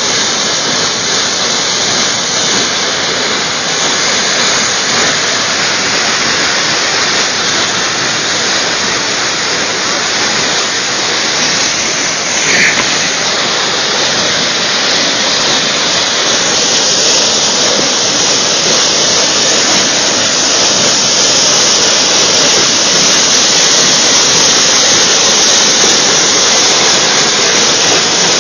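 Floodwater gushing up out of an open storm-sewer manhole in a loud, steady rushing spray, forced up by the pressure of the plugged, overwhelmed storm sewer.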